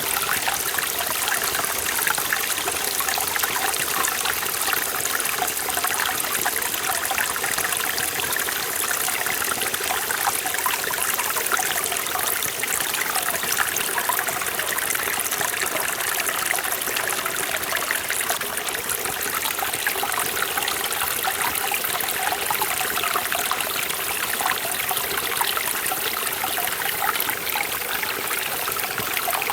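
Mountain valley stream flowing over rocks: a steady rush of water with fine splashing and trickling, unchanging throughout.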